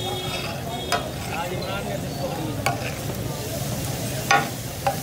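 Chicken pieces sizzling in oil on a large flat tawa griddle, with metal spatulas scraping and clanking against the griddle four times. The loudest clank comes a little past four seconds in.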